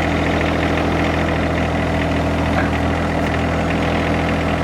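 John Deere 1025R compact tractor's three-cylinder diesel engine running steadily at an even speed.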